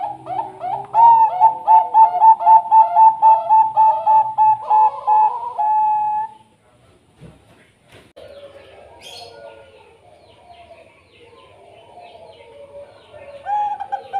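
Bangkok-bred zebra dove (perkutut) cooing: a loud, fast run of short ringing coos, about four a second, lasting about six seconds. After a short pause comes softer, lower, warbling cooing, and a new fast run begins near the end.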